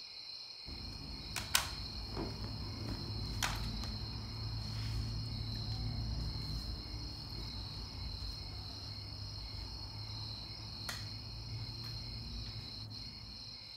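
Insects trilling steadily at one high pitch, over a low hum, with a few faint clicks.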